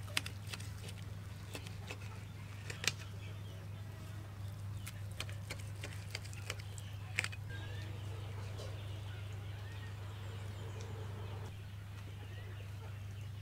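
Knife cutting through grilled stuffed beef on a steel tray, with sharp clicks as the blade strikes the metal, the loudest about three and seven seconds in, over a steady low hum.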